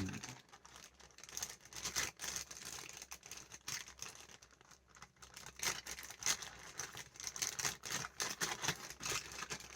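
Crinkling of a plastic toy wrapper being handled and opened, with irregular small clicks and taps of hard plastic toy parts.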